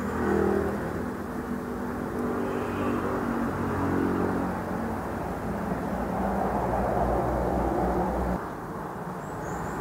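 A motor vehicle engine running, a low hum whose pitch wavers. The rumble grows heavier about six seconds in and falls away a little past eight seconds.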